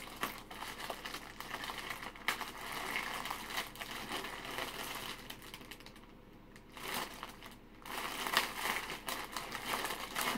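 Purple plastic mailer bag crinkling and rustling as hands pull and work it open. It goes briefly quieter about six seconds in, then crinkles louder again.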